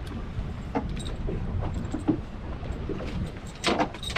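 Steady low wind and water noise on a small boat, with scattered brief clicks and rustles as a hook is worked free from a barracuda's mouth.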